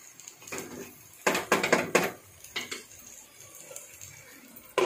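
Spatula scraping and knocking against a nonstick pan while stirring a thick masala with chopped tomatoes: a few strokes, mostly bunched together about a second in, with a sharper knock near the end.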